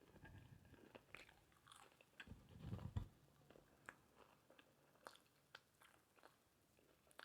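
Faint close-miked chewing and biting of tacos: scattered wet mouth clicks, with a louder bite about two and a half to three seconds in.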